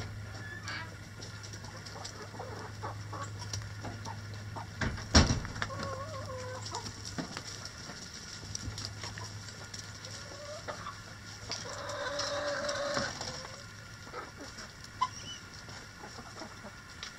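Backyard chickens clucking, with a sharp knock about five seconds in and one longer, drawn-out call about twelve seconds in. A low steady hum underneath stops around the knock.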